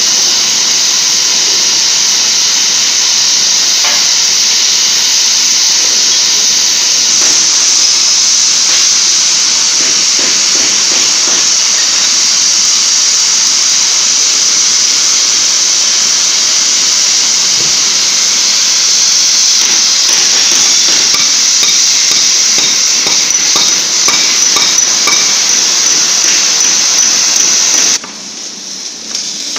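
Three-torch oxy-fuel bevel cutting head on a CNC gantry cutting thick steel plate: a loud, steady hiss of the cutting flames and oxygen jets with light crackling, cutting off abruptly near the end as the cut finishes.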